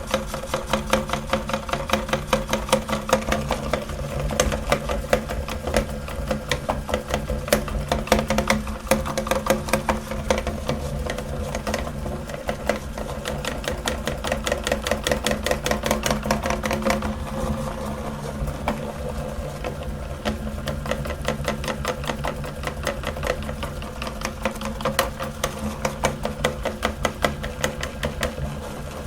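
Electric meat grinder running with a steady motor hum and a dense, rapid crackling as it grinds soap.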